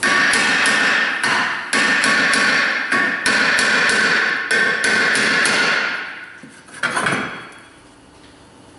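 A hammer taps repeatedly, about three or four blows a second, on the face of a seized cast-iron rear brake rotor, which rings with each blow as it is worked loose from the hub. The tapping stops after about five and a half seconds, and a brief clatter about seven seconds in is the loosened rotor coming off.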